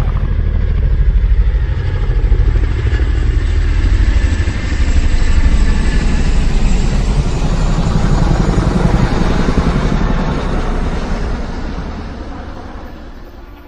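A motor vehicle's engine running loudly with a fast, rumbling firing beat, fading away over the last few seconds.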